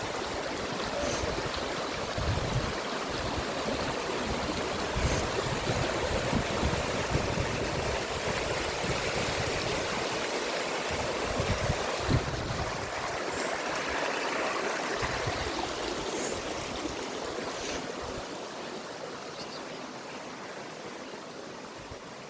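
Steady rush of a mountain stream's water running over rocks, with irregular low rumbling underneath. It grows slightly quieter over the last few seconds.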